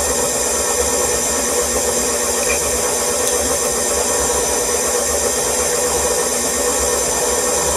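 KitchenAid stand mixer running steadily, its paddle beating butter and sugar in the metal bowl.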